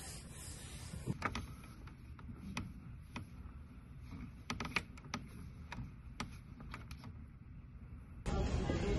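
A wet wipe rubbing across a desk top for about a second, then a scattered run of light clicks and knocks as small items are set down and arranged on the desk. Near the end a louder steady background noise cuts in.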